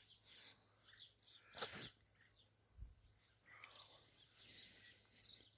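Near silence: faint garden ambience with small bird chirps and a thin steady high insect tone, and one brief rustle about one and a half seconds in.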